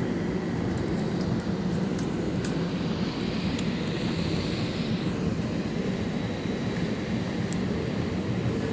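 Airliner cabin noise from inside the cabin: a steady engine drone and rumble as the plane moves along the ground.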